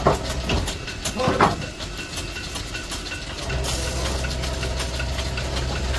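Quick scratching strokes of a small hand tool on a lacquered wooden charpai leg, with two louder knocks near the start and about a second and a half in. A steady low machine hum drops out just after the start and comes back a little past halfway.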